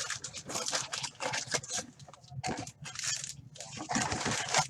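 Plastic wrapping crinkling and tearing in quick, irregular crackles as a new box of trading card packs is opened.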